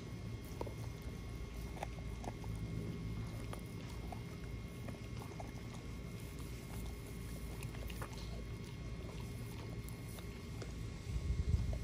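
An XL pit bull chewing and gnawing a piece of raw chicken, with scattered crunches and clicks. A low rumble runs underneath and swells briefly near the end.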